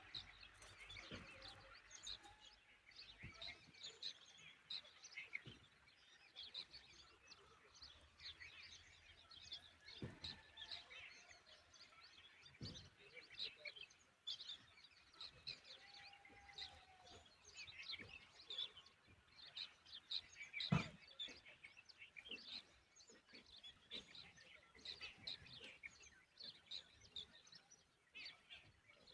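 Faint, continual short chirps of small birds calling, with a few soft knocks, the sharpest about twenty seconds in.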